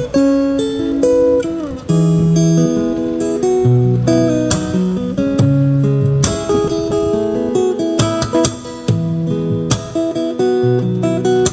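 Background music: plucked and strummed acoustic guitar playing a melody over a bass line.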